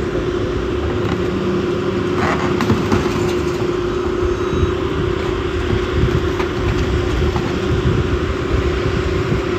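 Heavy equipment engine running steadily with a constant hum, with a few faint knocks or clanks about two to three seconds in.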